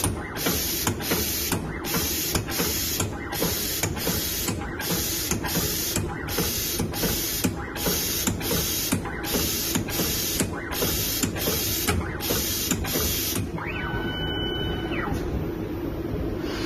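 Automatic lithium battery pack spot welding machine cycling. A quick, even run of short hissing bursts comes in pairs, over a constant low machine hum, and stops about 13 seconds in. A brief steady tone follows about a second later.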